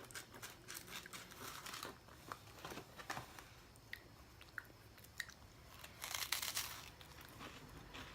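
Close-up chewing of a crisp, flaky hazelnut-praline waffle cookie: scattered small crunches and crackles, with a louder crackling stretch about six seconds in.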